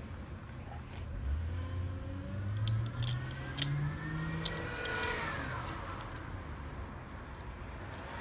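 A motor vehicle accelerating, its engine pitch climbing steadily for about four seconds and then fading. Small sharp metal clicks of lock parts being handled sound over it, the two loudest between three and a half and four and a half seconds in.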